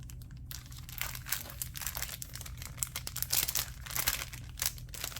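Packaging being handled and folded by hand, crinkling and crackling in quick irregular bursts from about half a second in.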